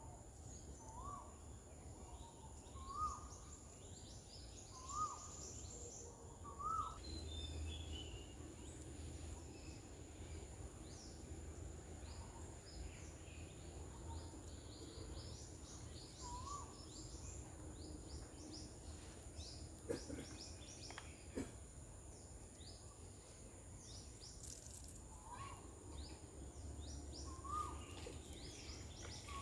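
Garden birds calling: a short rising call repeats every few seconds among many quick high chirps. A steady high-pitched tone runs underneath.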